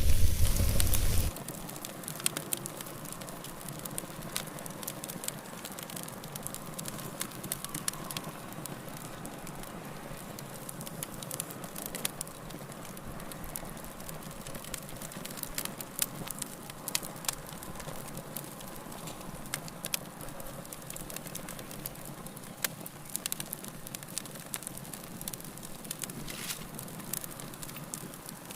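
Wood fire burning in a fireplace: a steady soft hiss with frequent sharp crackles and pops. For about the first second it is louder, with a deep rumble, then it drops to a quieter level.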